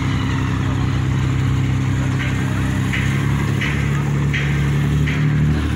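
Steady low engine drone, with a motorcycle passing close: its engine note climbs from about three and a half seconds in and drops away near the end.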